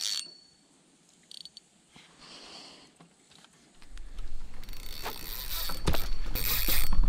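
Low rumble of wind on the microphone setting in about four seconds in, with several sharp clicks and metallic rattles of fishing gear being handled on a wooden dock.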